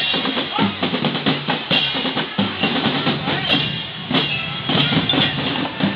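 A marching drum band playing in the rain: bass drums and snare drums keep a steady march beat under sustained melodic notes from the band's wind and bell instruments.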